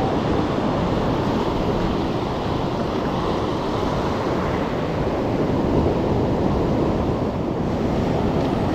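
Ocean surf washing steadily onto a beach, with wind noise on the microphone.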